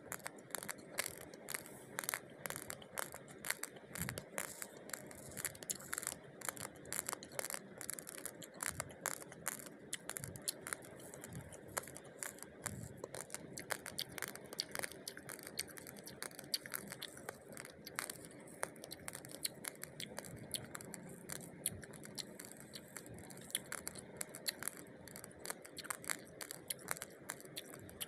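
Raw rice grains giving a dense, continuous run of small crisp clicks and crackles, with a few louder clicks standing out.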